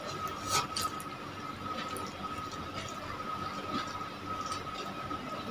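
Close-up wet mouth sounds of someone eating noodles by hand: moist chewing with a few sharp smacking clicks. A steady faint high-pitched tone runs underneath.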